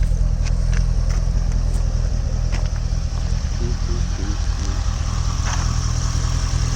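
Corvette C6's LS3 V8 idling steadily and smoothly, its cylinder 7 misfire cured by reseating the plug wire that had come loose.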